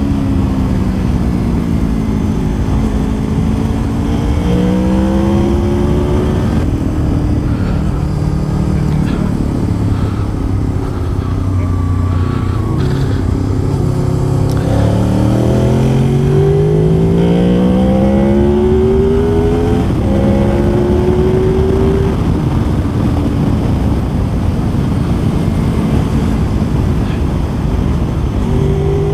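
Motorcycle engine heard from on board while riding, its pitch rising and falling again and again as the rider accelerates, shifts and slows through bends, over a steady low rumble.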